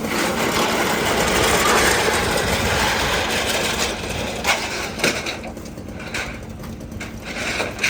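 A vehicle engine running steadily at idle, under a broad rushing noise that is loudest in the first few seconds, with a few sharp knocks about four and five seconds in.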